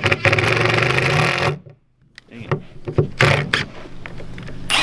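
Cordless drivers sinking screws into the OSB skin of a structural insulated panel. One runs hard and steady for about a second and a half, then stops abruptly. Shorter bursts of driving and clicks follow.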